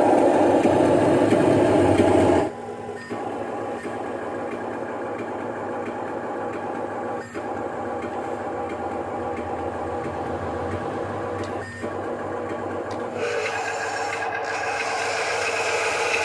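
Motors of radio-controlled construction models running with a steady mechanical whine. It drops sharply about two and a half seconds in and changes pitch and grows louder again near the end.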